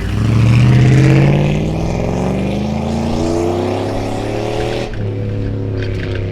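Chevrolet 5.3-litre LM7 V8 exhaust through a single-chamber performance muffler under acceleration, the note rising steadily in pitch. About five seconds in the driver backs off suddenly and it settles to a steadier, quieter drone.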